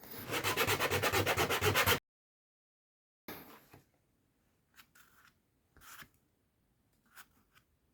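80-grit sandpaper rubbed hard and fast back and forth over a 3D-printed TPU plastic sample, several strokes a second, as an abrasion test. It stops abruptly about two seconds in, followed by a few faint handling clicks.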